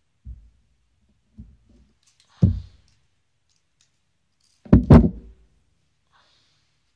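Needle-nose pliers handled on a tabletop while a needle is pulled through leather: a few soft knocks, a sharper thump, then a loud double clunk about five seconds in as the pliers are put down on the table.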